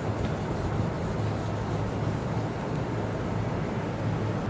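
A hand rubbing a wipe over a laminated grid sheet, erasing marker writing, over a steady low hum.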